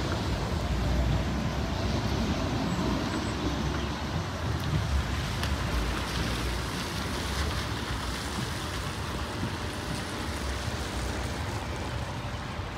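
Steady vehicle rumble with road or track noise, no single event standing out.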